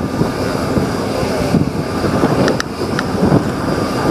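Loud, steady aircraft engine noise with a thin whine running through it, mixed with wind buffeting the microphone. A few sharp clicks come about two and a half to three seconds in.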